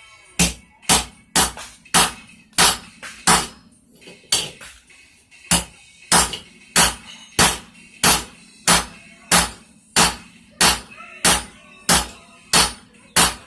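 Blacksmith's hand hammer striking a hot railroad spike on an anvil, flattening the steel: sharp, evenly spaced blows about one and a half a second. The blows break off about three and a half seconds in, with a single blow in the gap, then resume in a steady run from about five and a half seconds.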